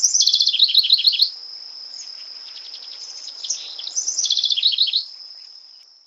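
House wren singing twice, each song a fast run of rapidly repeated high notes lasting about a second: the first at the start, the second about four seconds in. A steady high-pitched trill runs underneath and fades out near the end.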